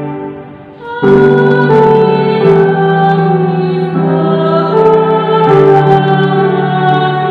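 Slow keyboard music of held chords. It dips in the first second, comes back strongly about a second in, and then moves to a new chord about every second and a half.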